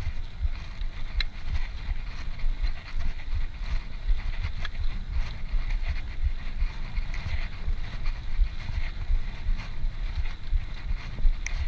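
Wind buffeting the microphone of a camera riding along on a moving bicycle: a gusty, fluttering rumble with a steady hiss above it and a few faint clicks.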